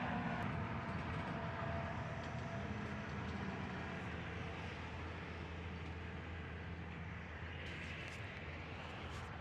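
Big truck passing on a nearby road, its engine and tyre noise slowly fading away.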